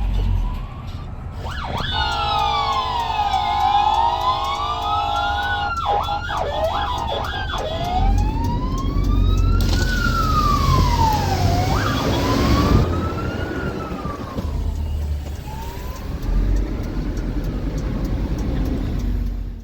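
Police car siren wailing in slow rising and falling sweeps, switched briefly to fast yelp sweeps about six to seven seconds in and again near the middle, over steady traffic noise.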